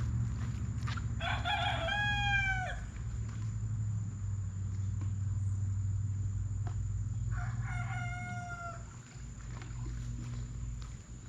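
A rooster crowing twice, each crow about a second and a half long and dropping in pitch at the end, about a second in and again near the end, over a steady low hum.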